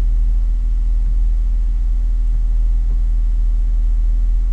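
A steady low hum, with a few faint steady higher tones above it.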